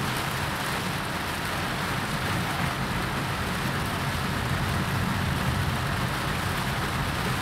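Heavy rain on a moving car, heard from inside the cabin: a steady hiss of rain on the windshield and roof over the low, even rumble of the car driving on the wet road.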